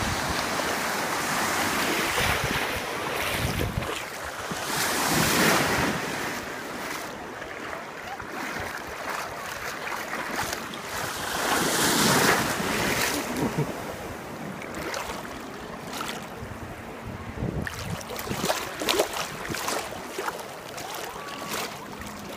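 Shallow sea surf washing in and out at the water's edge, a continuous rush of water with wind buffeting the microphone. The wash swells loudest about five seconds in and again around twelve seconds as foaming water surges past, then settles to lighter lapping and small splashes.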